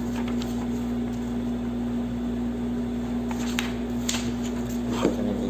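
A steady low electrical-sounding hum over background noise, with a few faint clicks or taps in the second half.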